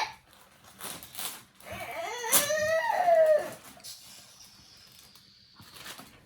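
A young child crying and whining: one long, rising-and-falling wail starting about two seconds in and lasting nearly two seconds, with a few short clicks before it.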